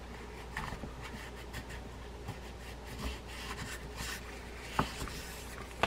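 Gloved fingers rubbing and handling the metal spool of an Olympic Zebra 4000 spinning reel: faint scratchy rubbing with scattered light clicks and one sharper tap near the end.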